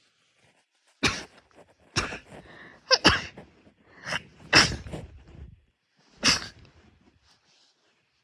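A person sneezing repeatedly: a run of about five sharp sneezes roughly a second apart, the last after a longer pause.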